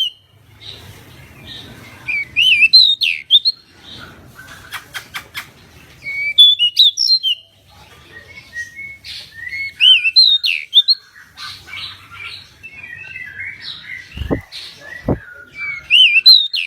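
Pied bushchat singing: about five bursts of quick, sweet whistled phrases with pitch swoops, repeated every few seconds. A rapid run of sharp ticks comes about five seconds in, and two dull low thumps come near the end.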